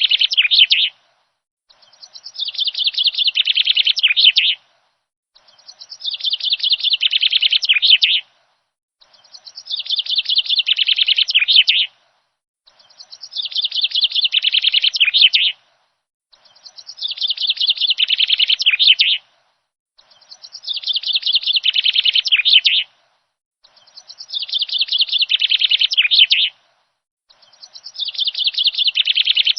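Birdsong track looped over and over: the same phrase of rapid high chirps, about two and a half seconds long, repeats roughly every four seconds with dead silence between repeats, about eight times.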